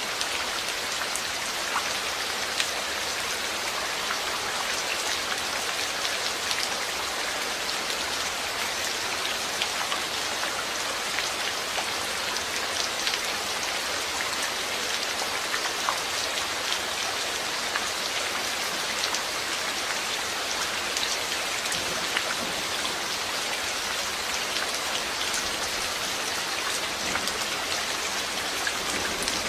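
Steady rain falling, an even hiss with many small drops ticking and pattering on a surface.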